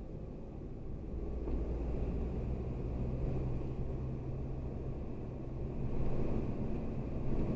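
Car engine and tyre noise heard from inside the cabin while driving, a steady low hum that grows louder over the first couple of seconds and again near the end.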